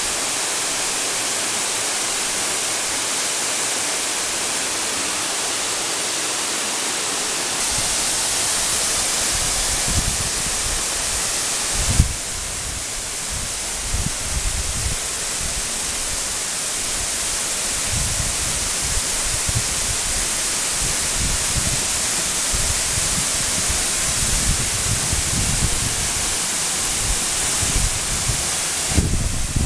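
A waterfall about 30 metres high crashes into its plunge pool with a steady, loud rush of water. From about eight seconds in there are irregular low rumbles on the microphone.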